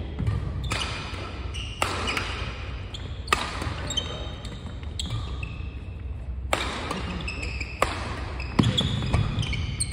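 Badminton rackets striking a shuttlecock back and forth in a rally, sharp cracks about once a second, with sneakers squeaking on the wooden court floor between shots.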